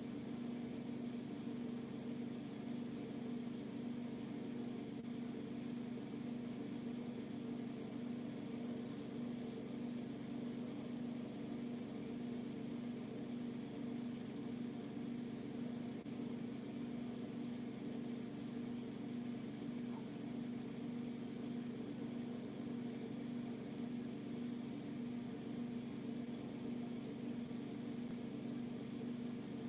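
Steady machine hum, even throughout, with no chirping heard.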